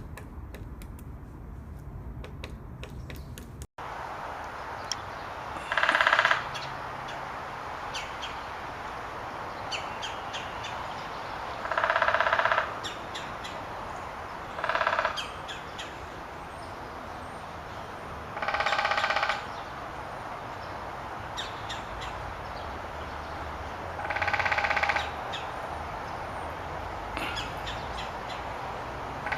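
Woodpecker calling: five harsh, rattling calls, each under a second long and several seconds apart, after a few seconds of light irregular tapping.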